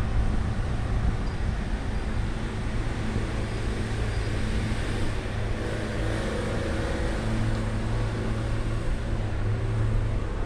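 Steady low rumble of road traffic with a constant low hum, and no distinct events.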